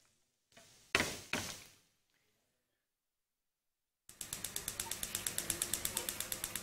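A spatula knocking and scraping in a frying pan twice about a second in. Then, after a silent gap, a fast, very even clicking, about eight clicks a second, lasting some three seconds.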